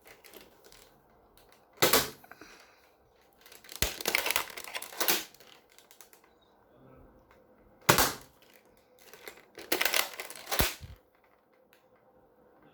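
Toy foam-dart blaster being loaded and primed: plastic clacks and rattles, with sharp single clacks about two seconds in and near eight seconds, and clusters of clattering around four to five seconds and again around ten seconds.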